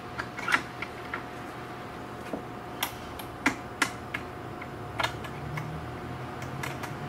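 Irregular sharp clicks and taps of metal and plastic roof-rack hardware being handled as a kayak is secured on a Yakima Showdown load-assist rack, the security pin and straps being fitted. The loudest click comes about half a second in, with a cluster of louder ones around three to four seconds.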